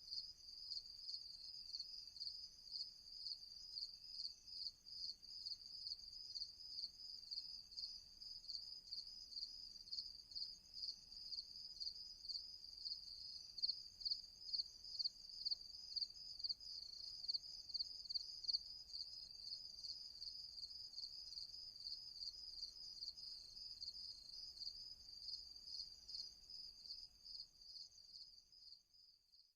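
Crickets chirping in a fast, even pulsing trill, fading out near the end.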